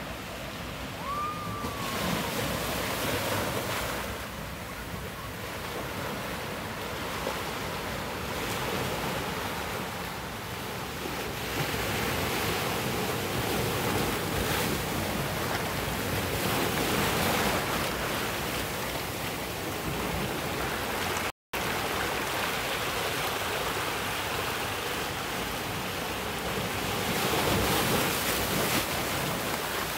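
Ocean waves surging and breaking over black volcanic rocks at the shoreline, the wash swelling and ebbing, loudest in the middle and near the end as a wave splashes up over the rocks. The sound cuts out for a split second about two-thirds of the way through.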